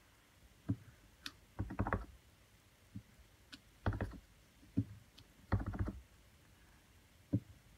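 Clear acrylic stamp block with a photopolymer stamp tapped onto an ink pad and pressed onto cardstock on a tabletop: short clusters of quick light taps and single knocks, about one every second.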